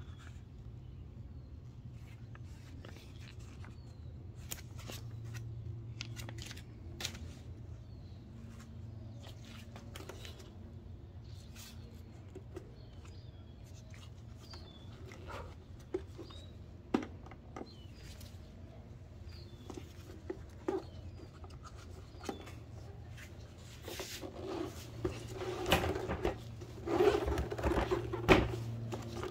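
Gloved hands handling a plastic-cased portable jump-starter power station and its paper manual: scattered clicks, taps and paper rustles, then a louder run of knocks and rattles near the end as the unit is lifted and tipped on its side. A steady low hum runs underneath.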